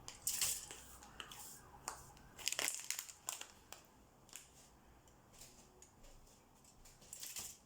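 Faint, scattered crinkling and rustling as cookie dough is pressed onto a tinfoil pan by gloved hands.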